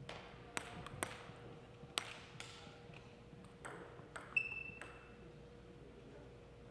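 Celluloid table tennis ball bouncing and tapping in a reverberant gym hall: about ten sharp, irregularly spaced clicks, one with a short high ping about four and a half seconds in. Louder hits begin right at the end.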